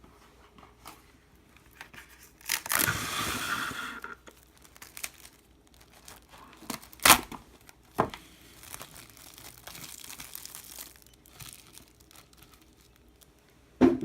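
A sheet or bag being torn and crinkled, with a loud rip a few seconds in and softer rustling later. There are a few sharp clicks in between and a thump near the end.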